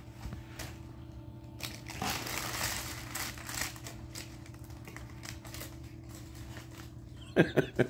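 Tissue paper rustling and crinkling as the wrapping inside a shoebox is pulled back, with scattered light clicks of the cardboard box. Two short, louder sounds come near the end.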